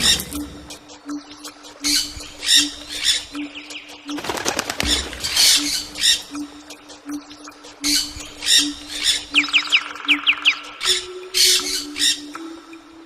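Bird sounds: repeated harsh bursts of wing flapping and squawking, with a quick run of falling chirps near ten seconds in, over a low tone that pulses evenly throughout.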